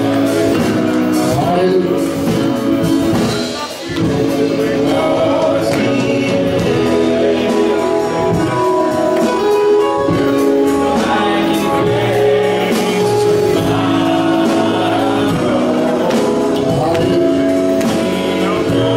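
Gospel music: singing over sustained instrumental chords, steady throughout with a brief lull about four seconds in.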